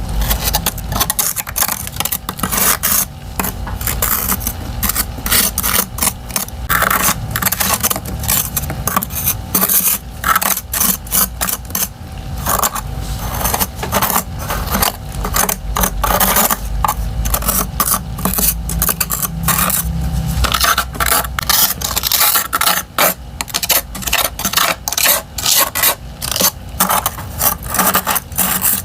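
Freezer frost and thin refrozen ice chunks being crunched and scraped: many crisp crackles in close succession, without a break.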